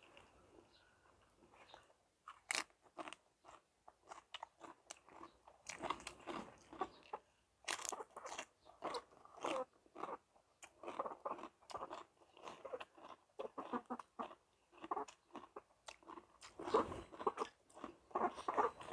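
A man eating rice noodles and green papaya salad by hand, chewing and smacking his lips close to the microphone. The sound is a dense run of short, wet clicks, sparse for the first couple of seconds and then constant.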